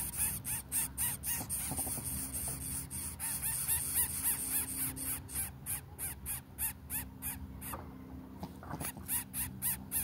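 Greater coucal chicks giving raspy begging calls in a fast repeated series, about three a second, with a short lull near the end.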